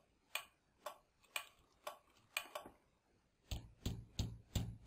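Light taps of a finger on a tabletop, about two a second, turning harder and a little quicker about three and a half seconds in. They are knocks testing a car alarm shock sensor turned down to low sensitivity, too light to set it off.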